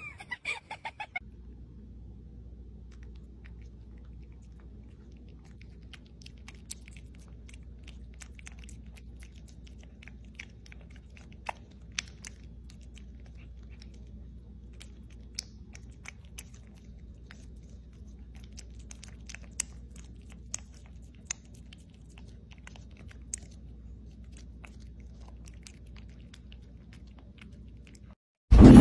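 Kitten licking a lickable squeeze-tube cat treat: soft, irregular wet smacking and clicking of its tongue and mouth over a low steady hum.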